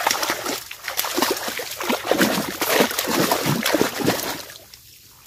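Shallow water splashing and sloshing as a large basket is scooped through it, in irregular bursts that die away shortly before the end.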